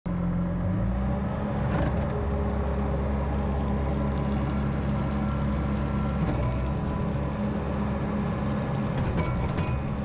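2017 Bobcat S570 skid steer loader's 61 hp Tier 4 diesel running steadily while the loader arms raise and lower the bucket. The engine note shifts slightly just under a second in, and a few short knocks come near the end.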